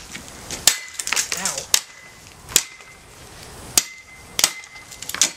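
A series of about five sharp, separate blows smashing a coffee maker and its broken pieces.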